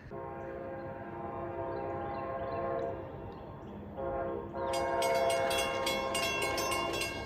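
Approaching passenger train's locomotive air horn sounding two long chords, the usual grade-crossing warning, with a ringing bell joining in about two-thirds of the way through.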